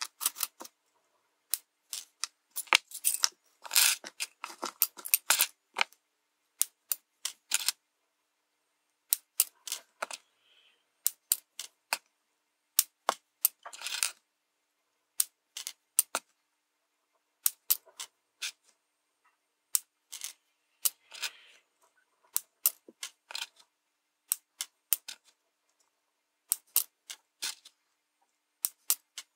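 Side cutters snipping through the wire leads of RGB LEDs: sharp clicks, often two to four in quick succession as each LED's leads are trimmed, with brief clatters of LEDs being handled about four and fourteen seconds in.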